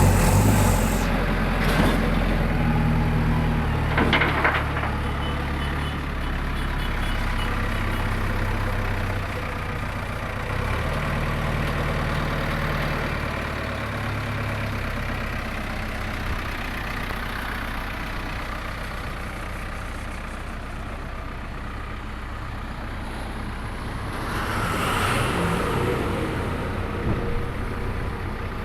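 The diesel engine of a JCB 3DX backhoe loader running at idle, with its pitch stepping up and down a few times in the first half. A short knock comes about 4 seconds in, and a louder rush of noise rises and fades about 25 seconds in.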